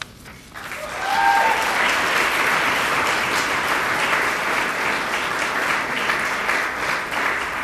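Audience applauding, building up over the first second and then carrying on steadily.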